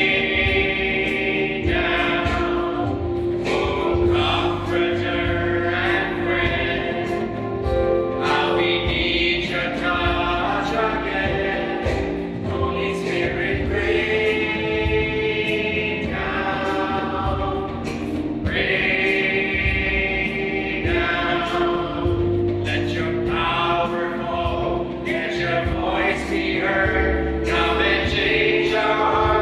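A church worship team singing together in long held notes over steady instrumental accompaniment.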